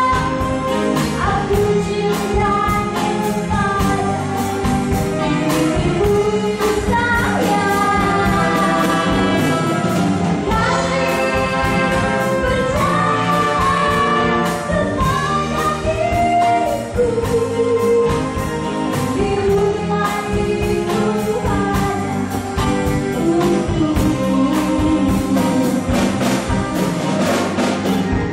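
A live band playing a song: a singer's melody over electric guitar, drums and brass.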